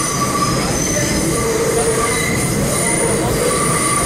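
New York City Subway C train running through a tunnel, a steady loud rumble of wheels on rail. High-pitched wheel squeal rises and fades over it several times.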